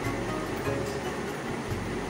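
Background music over onions, bay leaves and garlic sizzling in oil in an iron kadai, with the occasional scrape of the spatula.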